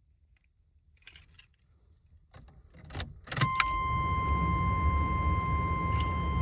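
Truck keys jangling, a click about three seconds in, then a steady high-pitched electronic warning tone starts and holds over a low, steady rumble as the ignition is switched on.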